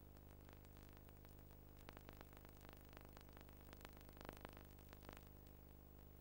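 Near silence: a faint steady low hum with hiss and scattered faint clicks and crackle, thickest in the middle.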